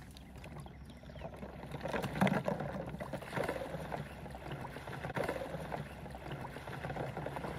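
Water sloshing and swishing in an uneven rhythm as a person wades through shallow flooded timber in waders, towing a string of floating duck decoys.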